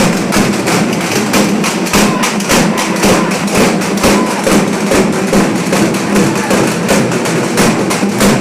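Fast percussion music: loud, rapid drum beats several times a second over a steady low drone.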